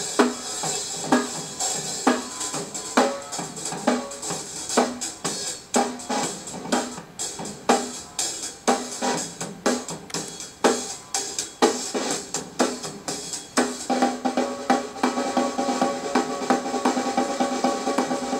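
Recorded rock song playing, with a prominent drum kit: a steady beat of kick, snare and hi-hat hits. Held chords come in about fourteen seconds in.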